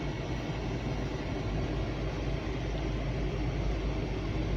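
Freight train passing close by, a steady low rumble.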